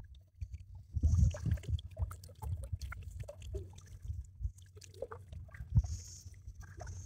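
Someone wading through a shallow river: soft, irregular splashing and sloshing of water, loudest about a second in.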